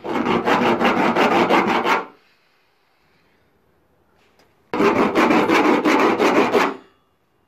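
A hand tool scraped hard and rapidly back and forth across a textured Titan protective coating in two bursts of about two seconds each, with a pause between: a scratch test of the week-cured coating.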